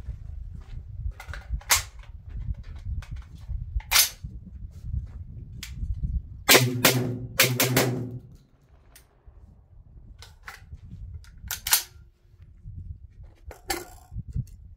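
Tokarev TT12 semi-automatic 12-gauge shotgun firing a string of shots at uneven intervals, several in quick succession about a third of the way through and a few more spread out after.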